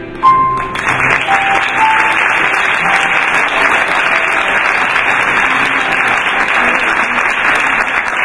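Concert audience applauding, breaking out suddenly right as the accordion and piano piece ends and going on steadily and loudly.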